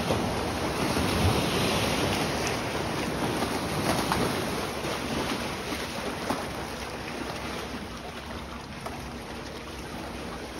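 Wake waves sloshing and slapping against a moored pontoon boat's pontoons and a wooden dock in shallow water. Loudest over the first few seconds, then gradually easing, with a few sharper slaps along the way.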